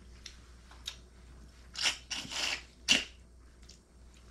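Eating sounds at the table: a faint click about a second in, then a few short scrapes and rustles about two to three seconds in, the last one sharp.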